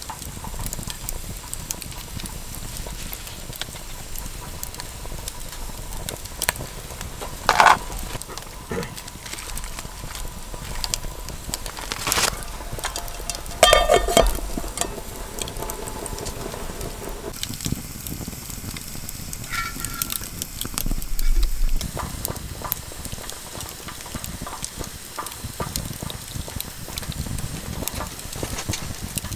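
Campfire crackling and a pot of broth simmering on a small camp stove, with scattered clinks of metal utensils against the pot. About halfway through, a metal lid is set on the pot with a ringing clank.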